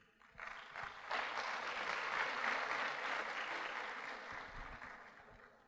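Audience applauding. It starts about half a second in, swells over the next second, then slowly dies away toward the end.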